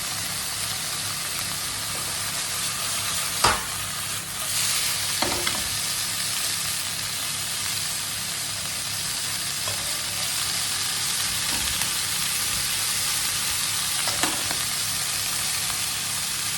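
Chicken livers and onions frying in olive oil in a pan: a steady sizzle, with a few sharp knocks of the stirring utensil against the pan, the loudest about three and a half seconds in.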